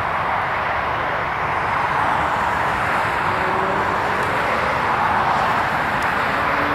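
Steady rush of road traffic, with a vehicle's engine tone rising faintly in the second half.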